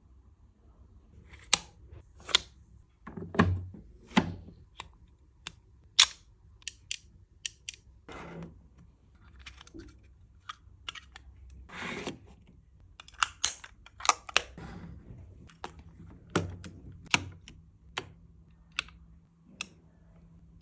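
Small parts of a miniature kitchen kit being handled and fitted together: irregular light clicks and taps, with a couple of short scraping rubs.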